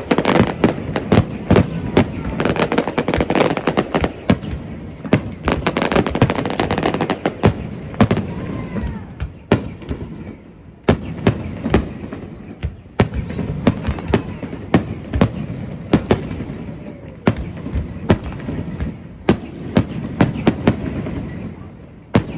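Fireworks display: a dense run of booms and crackle for the first several seconds, then single aerial shell bursts about once a second.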